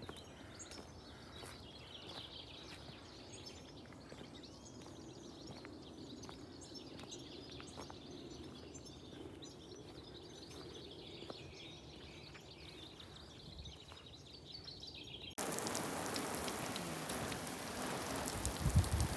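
Quiet rural morning ambience with birds chirping. About fifteen seconds in it cuts abruptly to the loud, steady rushing hiss of water spraying.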